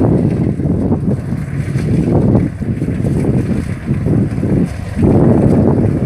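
Kubota DC-70 rice combine harvester running as it harvests: a loud, low rumble, with wind buffeting the microphone and swelling the noise in gusts, most strongly about five seconds in.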